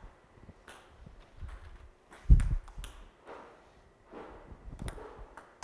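Celluloid-type table tennis ball clicking off paddles and the table as a long serve is received with a backhand. A few sharp ticks are spread across the moment, with a louder thump about two seconds in.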